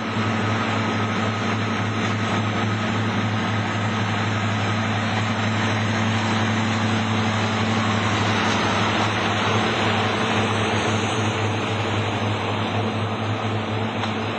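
A steady mechanical drone with a deep, even hum, unchanging in level throughout.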